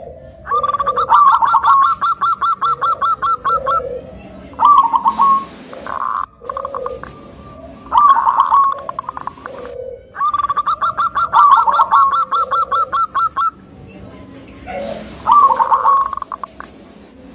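Zebra dove (local perkutut) calling: a rapid run of staccato notes lasting about three seconds, then a few shorter cooing phrases. The whole sequence comes round again about ten seconds in.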